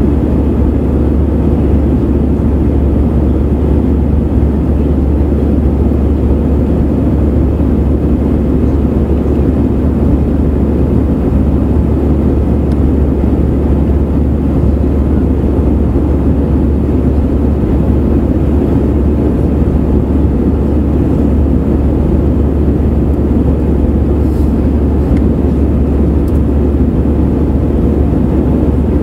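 Airbus A320 jet engines and airflow heard from inside the passenger cabin as the airliner climbs after takeoff: a loud, steady, low drone.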